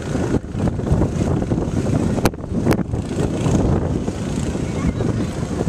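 Wind buffeting the microphone: a steady, fluctuating low rumble, with two sharp clicks a little after two seconds in.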